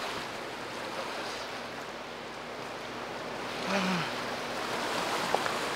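Steady rush of a wide river's choppy water washing against a stony shore. About four seconds in, a brief low voice-like sound rises over it.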